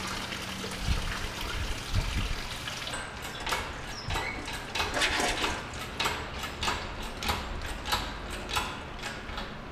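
Lifting chain and engine metal clinking and knocking as the engine is raised on a chain hoist, a few sharp clinks each second from about three seconds in, over a steady hiss.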